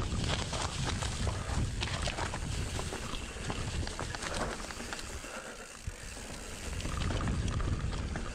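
Wind buffeting the microphone over the rattle and clatter of a mountain bike rolling over a rough trail. It eases off for a couple of seconds past the middle, then picks up again.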